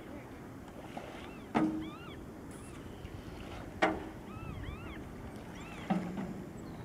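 A paddle knocking against the hull of a homemade bathtub boat on its strokes: three hollow knocks about two seconds apart, each with a short ring. Small birds chirp repeatedly between the knocks.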